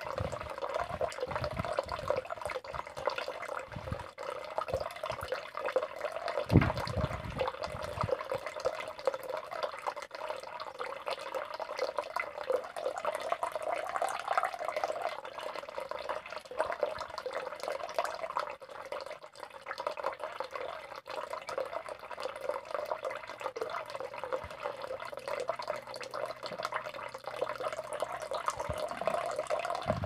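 Running water trickling and burbling steadily, with a few low thumps, the loudest about six and a half seconds in.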